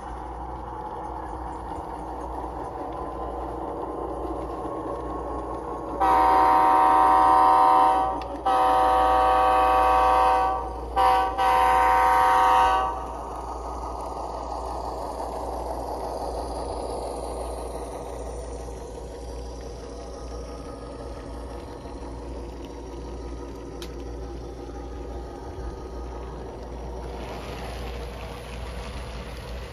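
Onboard sound of an HO scale Athearn Genesis G2 GE C44-9W model diesel locomotive: the diesel engine sound runs steadily. About six seconds in, a chime air horn sounds two long blasts, two quick toots and a final long blast.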